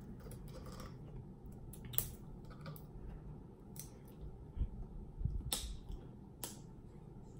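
Plastic safety seal being picked and torn off the cap of a plastic salad dressing bottle: faint crinkling of plastic with a few sharp clicks, the clearest about two seconds in and twice more near the end.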